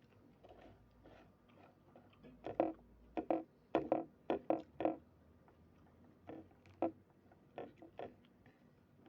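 Close-up eating sounds: a person chewing and biting food, in a quick run of short mouth noises bunched about two to five seconds in, then a few scattered ones.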